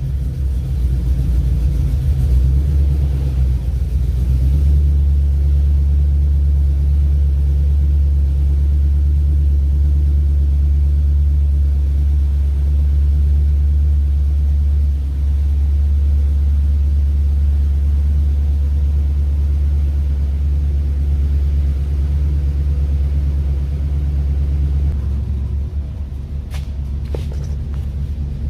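A vehicle engine idling steadily with a deep, even rumble. The tone shifts slightly and drops a little about 25 seconds in, and a few short clicks come near the end.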